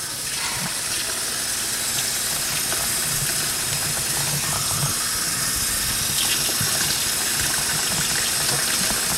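Kitchen sink faucet running steadily, water pouring into the sink and splashing around a bathing baby; later a plastic cup is held under the stream and fills.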